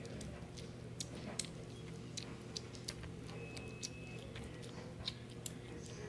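Bengal kitten chewing and biting its food: irregular small clicks and crunches, several a second, over a steady low hum.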